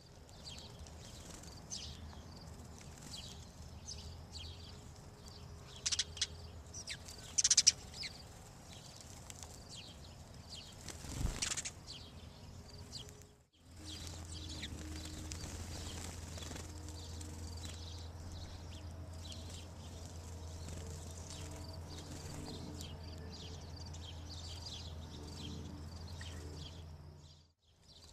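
House sparrows chirping at a bird feeder, many short repeated chirps, with a few louder sharp calls or wing flutters about six to eight seconds in and a sharp knock about eleven seconds in. In the second half, after a cut, a steady low hum runs underneath.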